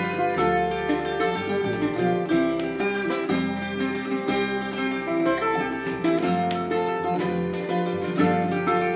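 Custom Aaron Oya tiple, a ten-string ukulele with all-steel strings in doubled and tripled courses, played in a quick run of strokes with ringing chords that change every second or so.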